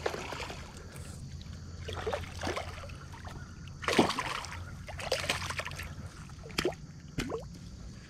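A hooked striped bass thrashing at the surface of shallow water as it is landed, making a run of short, separate splashes, the biggest about four seconds in.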